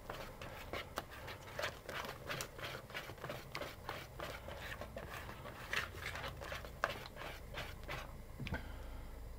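Thick, sticky spaetzle batter of flour, eggs and milk being beaten in a large bowl. It comes as quick, uneven strokes, about three a second, which stop about eight seconds in.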